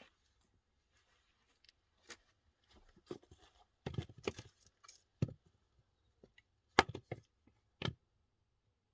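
Scattered, irregular clicks and crunches at close range, a dozen or so short sounds with the loudest near the middle and toward the end.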